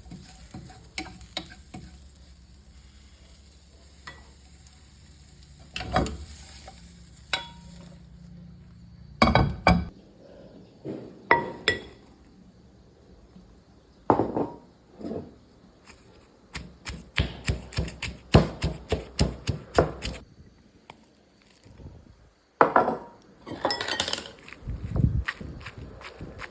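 Food-preparation sounds: scattered knocks and clinks of utensils against dishes and a board. A dense run of quick strikes comes in the middle, about four a second, like chopping.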